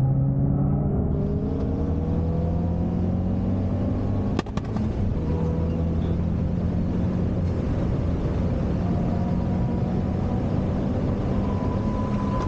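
Ford Focus RS's turbocharged four-cylinder engine pulling hard under acceleration on track, heard from inside the cabin over road noise. The engine note climbs, breaks with a click and a brief dip for a gear change about four and a half seconds in, then climbs again.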